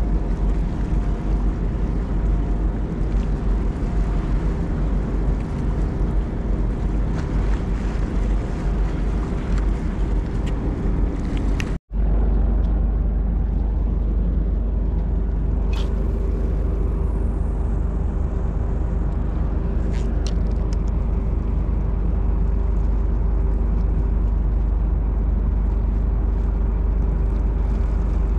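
Steady low drone of a ship's engine across the harbour water, with a constant hum running through it and wind rumbling on the microphone. The sound cuts out for an instant about twelve seconds in, then carries on.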